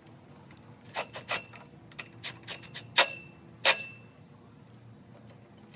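Scattered sharp clicks and light metallic clinks of small screws and tools being handled against an aluminum railing bracket. The two loudest clinks, about three seconds in and half a second later, ring briefly. No power tool is running.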